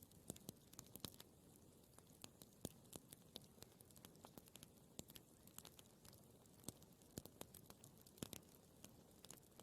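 Campfire crackling faintly: irregular sharp pops and snaps of burning wood, several a second, over a soft steady hiss.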